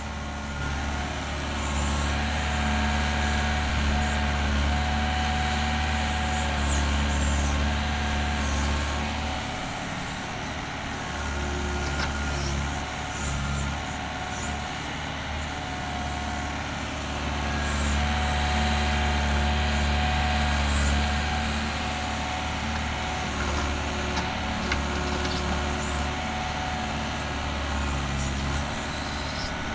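Doosan DX55 mini excavator's Yanmar 4TNV diesel engine running under load while the machine digs soil, its note swelling and easing with the work and dropping back for a moment about a third of the way in. A thin tone comes and goes over it, with short high squeaks now and then.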